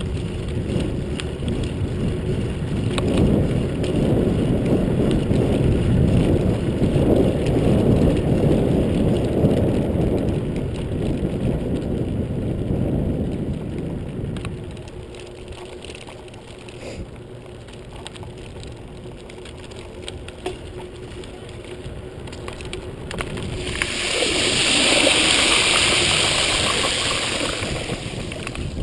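Low rumble of riding and wind on the microphone of a bicycle ride, loud for the first half and then quieter. Near the end a hiss swells and fades over about four seconds.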